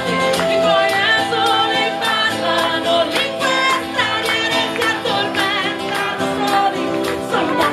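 Live folk band playing: fiddle and acoustic guitar with singing voices over a steady beat.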